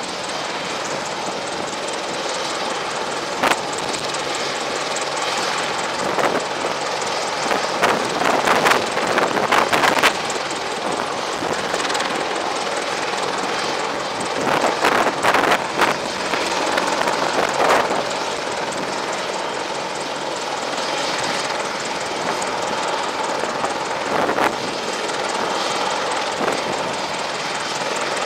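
AH-64 Apache attack helicopter running on the ground, its twin turboshaft engines and rotor giving a steady rushing whine that swells louder a few times.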